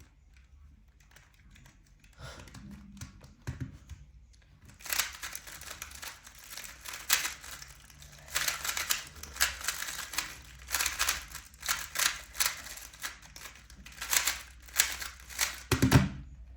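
Plastic Rubik's cube being turned by hand: fairly quiet for the first few seconds, then rapid clicking and clacking turns in bursts with short pauses, and a soft knock near the end.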